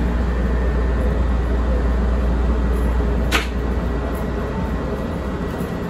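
CTA 2600-series rapid-transit car running along the track, heard from inside: a steady low rumble of wheels and running gear. One sharp clank about three seconds in.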